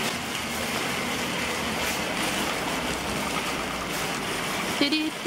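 A steady rushing noise, ending near the end in a short, flat-pitched tone.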